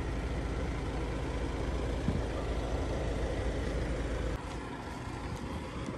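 A motor vehicle engine rumbles steadily, then the low rumble drops away abruptly about four seconds in.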